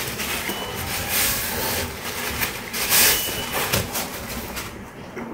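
Paper napkin rustling and crumpling in the hand, a rough hiss that swells several times, loudest about three seconds in.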